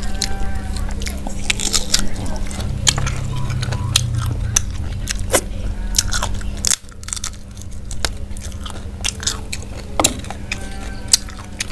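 Close-up chewing and biting of fried chicken, with many short sharp crunches, over a steady low hum.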